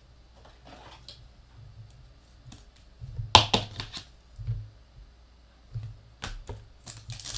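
Trading cards handled against a rigid clear plastic top loader: scattered sharp plastic clicks and taps, with a loud cluster of clicks and rustles about three seconds in and a few more near the end.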